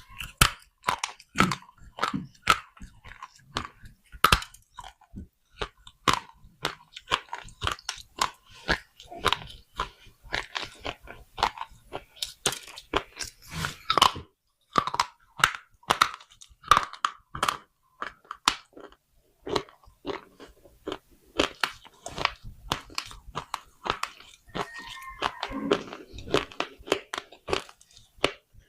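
Pieces of baked clay pot being bitten and chewed: a dense, irregular run of sharp, brittle crunches and cracks.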